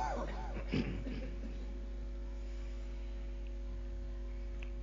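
Steady electrical mains hum with a few faint steady tones above it, typical of a microphone and amplifier setup left open. Two brief, faint voice sounds come in the first second.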